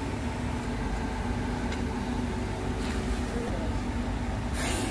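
Steady low machine hum, with a short sharp hiss about four and a half seconds in.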